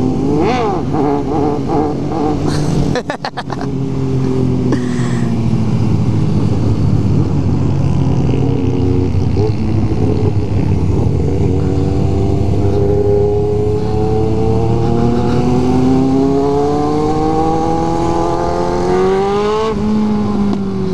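Kawasaki Z750's inline-four with a 4-into-1 exhaust, ridden under way. It revs up and down briefly in the first seconds, then pulls hard with its pitch climbing steadily for about eight seconds before it drops back near the end.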